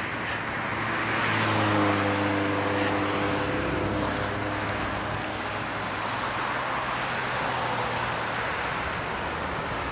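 Road traffic: the steady hum of a vehicle engine with tyre noise from passing cars, loudest about two seconds in.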